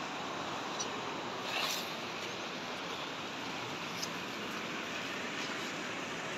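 Steady rushing of a mountain river, an even hiss of flowing water, with a few faint clicks.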